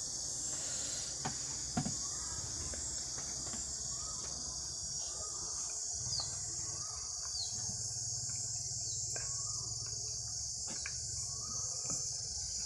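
Steady high-pitched insect chirring, like a cricket chorus, with a couple of faint clicks about a second and a half in.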